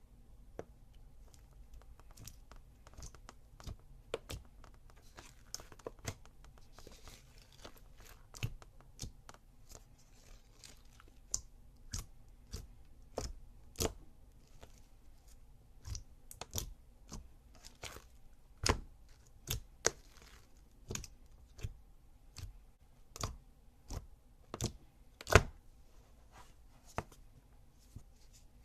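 Clear slime being handled, giving irregular sharp pops and clicks, some louder than others, with the loudest pop about 25 seconds in.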